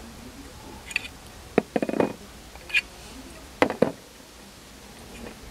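A scatter of short, sharp metal clinks and knocks from hand tools, a length of pipe used as a breaker bar and an Allen key, against the bolts and case of a Yamaha XT250 engine's oil filter cover as the bolts are loosened. One clink about two seconds in rings briefly, and the loudest pair comes a little past halfway.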